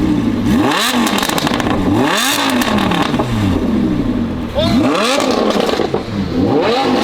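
Car engine revved through a valved performance exhaust, its pitch climbing and falling back about four times, about every two seconds.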